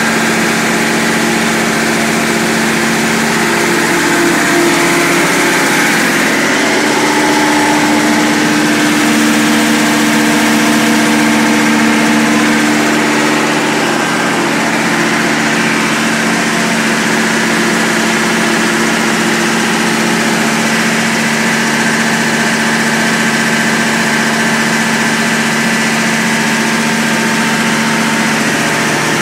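John Deere 50 kW generator running steadily at constant speed, a loud even engine hum heard inside the spray-foam rig's trailer.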